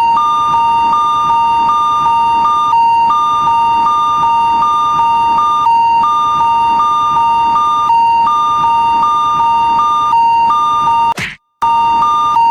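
Japanese railroad crossing warning bell ringing in a fast, even alarm rhythm: a steady tone with a higher tone pulsing over it about two to three times a second. It cuts out briefly near the end.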